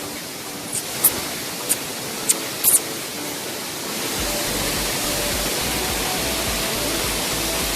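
Steady rushing of a waterfall, with a few sharp clicks in the first three seconds. A low rumble joins about four seconds in.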